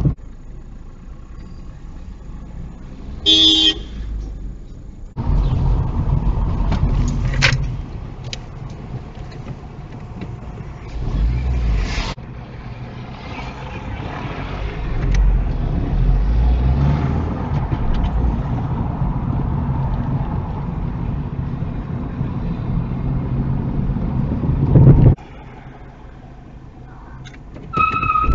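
Car dash cam audio of engine and road noise in traffic, changing abruptly as the recording jumps between clips. A car horn sounds briefly about three seconds in, and a short tone sounds again near the end.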